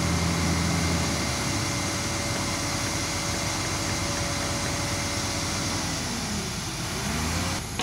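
Diesel engines of a Hitachi Zaxis 350 hydraulic excavator and a concrete mixer truck running steadily side by side. The engine note dips and rises again near the end.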